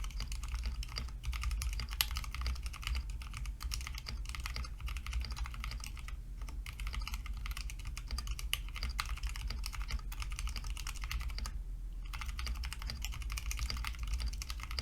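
Fast, continuous typing on a custom 65% mechanical keyboard with Kailh Speed Silver linear switches in a walnut case: a rapid stream of key clacks, broken by two short pauses about six and twelve seconds in.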